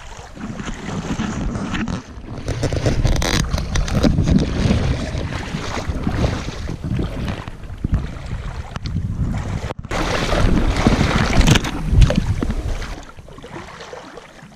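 Wind buffeting the microphone, mixed with water sloshing and splashing as a person wades through shallow water.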